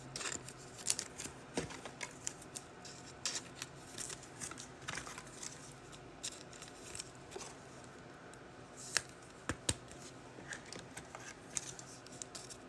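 Trading cards and their packs being handled: faint, scattered clicks and rustles of cards being flipped and packaging being worked, with a few sharper ticks.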